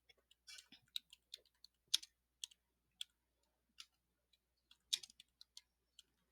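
Computer keyboard typing: scattered, irregular key clicks, faint and unhurried.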